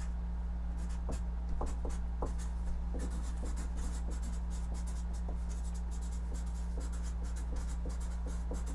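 Marker pen writing on a large paper sheet taped to a wall: a run of short, quick strokes as words are written out, over a steady low hum.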